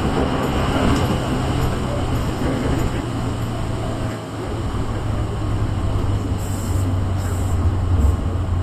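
Tobu 8000-series commuter train running on the line, a steady low rumble with a rushing noise over it. Two short high hisses come near the end.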